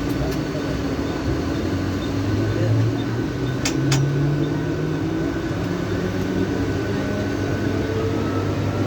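Mumbai suburban electric local train running: a steady rumble with a faint motor whine that drifts in pitch. Two sharp clicks come a little under four seconds in.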